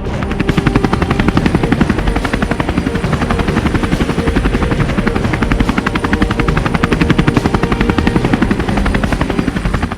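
Helicopter rotors beating in a fast, steady chop that cuts off abruptly at the end.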